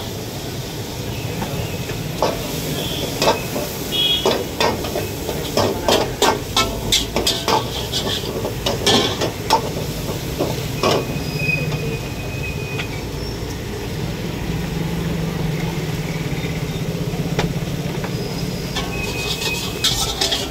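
A ladle clanks and scrapes against woks in irregular strokes, over the steady rush of high-flame gas burners and the sizzle of frying. The clanks come thicker near the end.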